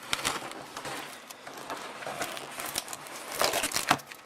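Packaging being handled and opened by hand: irregular rustling and crinkling with sharp clicks and taps, busiest near the end.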